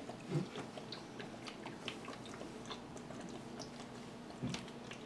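A person chugging carbonated soda from a bottle: faint repeated gulping and swallowing with small wet mouth clicks, and two heavier gulps, one about half a second in and one near the end.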